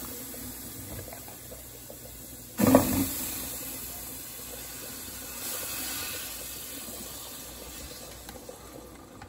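Butter dropping into a hot aluminum stockpot and sizzling: a clunk about two and a half seconds in, then a hiss that slowly fades, with a smaller swell near the middle.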